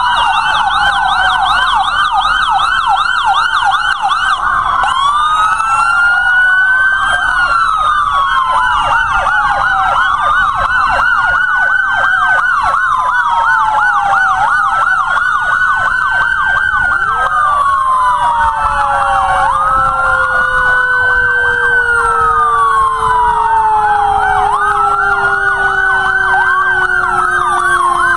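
Several emergency vehicle sirens sounding together from ambulances and police vehicles driving past. Slow rising-and-falling wails overlap with fast yelps. Over the last ten seconds a lower tone slides slowly down in pitch.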